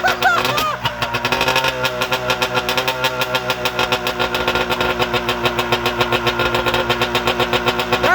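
Arctic Cat ZL440 two-stroke twin snowmobile engine running steadily through a straight pipe with no muffler, with a fast, even popping exhaust note.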